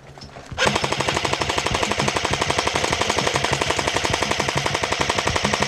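Airsoft electric gun firing one long full-auto burst, a rapid even stream of shots that starts about half a second in and does not stop.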